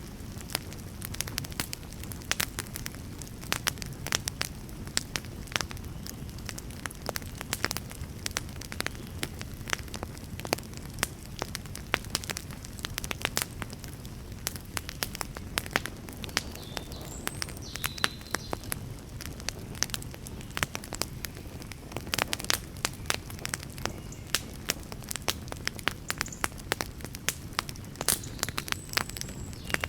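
Wood fire burning, with frequent sharp crackles and pops over a steady low rumble of the flames.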